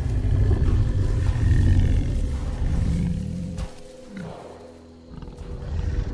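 Tyrannosaurus rex vocalization sound effect: a long, deep growl lasting about three and a half seconds, then a second, quieter deep growl swelling near the end.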